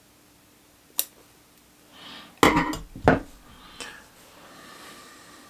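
A single sharp click about a second in, then a cluster of knocks and clinks, like small hard objects being handled and set down on a hard work surface, the loudest about two and a half to three seconds in.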